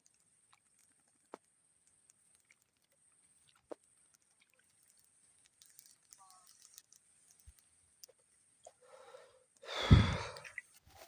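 Mostly quiet with scattered faint clicks, then near the end a loud breathy rush lasting about a second, a person exhaling heavily close to the microphone.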